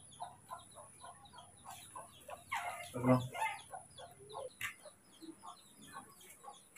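Chickens clucking: a quick run of short clucks throughout, with one louder call about three seconds in.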